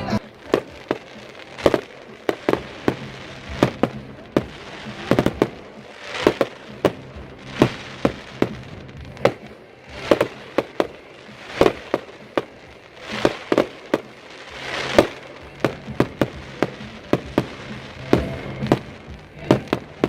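Fireworks display: many sharp bangs of exploding fireworks in quick, irregular succession, often several a second.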